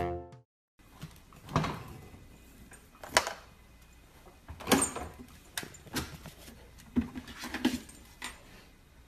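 Scattered light knocks and rattles, each a second or so apart, as a husky puppy clambers onto the bottom shelf of an open refrigerator and bumps against it.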